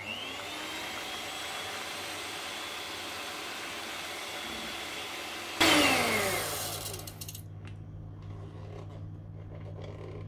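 Electric kitchen mixer motor switching on with a short rising whine and running steadily. About five and a half seconds in it gives a sudden loud burst, then winds down with falling pitch over a second or so, leaving a low hum and a few light clinks.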